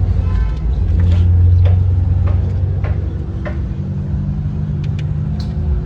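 Low, steady rumble of a motor vehicle engine running, loudest a second or two in, with scattered light clicks and taps over it.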